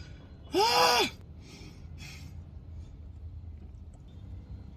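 A short vocal sound from a person, about half a second in, lasting about half a second, its pitch rising then falling. A couple of faint breaths follow.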